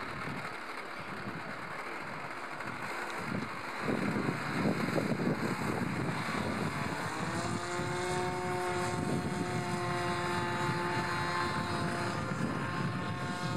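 Radio-controlled model aircraft's propeller and motor running with a steady whine from about seven seconds in, rising in pitch near the end as the throttle opens. Wind noise on the microphone comes before it.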